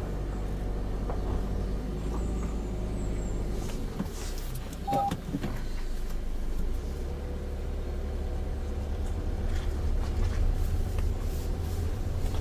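Peugeot car with a manual gearbox heard from inside the cabin while driving slowly: a steady low engine hum and road rumble.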